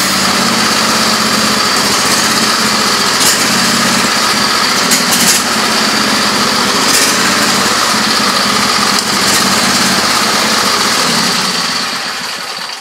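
Husqvarna YTH2448 riding lawn tractor's engine running steadily while the tractor drives. The owner believes its governor is set wrong. The engine sound dies away near the end.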